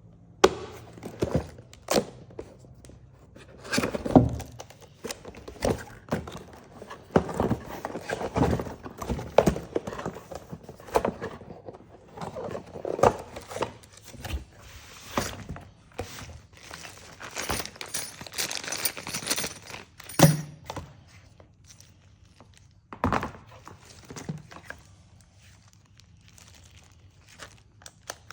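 A hammer drill and its packaging being handled as it is unboxed: irregular thunks, clicks and knocks with some rustling and crinkling, and one sharp knock about two-thirds of the way through.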